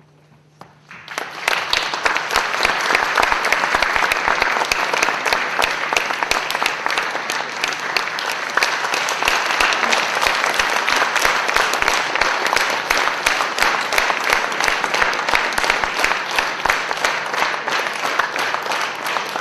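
Concert-hall audience applauding at the end of an orchestral piece. The clapping begins about a second in, quickly swells to full, steady applause of many hands, and starts to die away at the very end.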